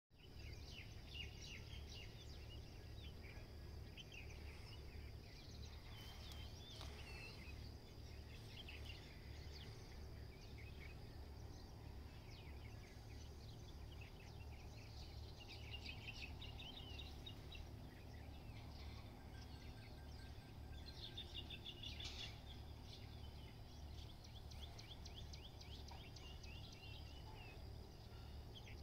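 Faint outdoor birdsong: many short chirps and twittering notes from several small birds, over a steady high thin tone and a low rumble.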